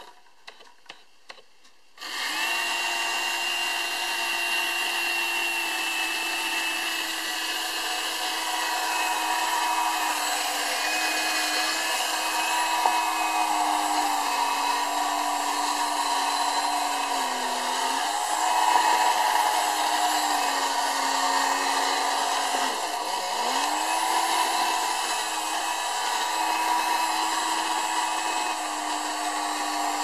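Small electric motor and fan of a wire-remote tin toy hovercraft whirring steadily. It starts about two seconds in after a quiet moment with a few clicks, and its pitch sags briefly twice.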